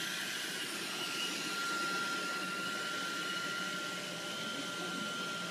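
A household appliance motor running steadily: a constant rushing noise with a thin, steady high whine.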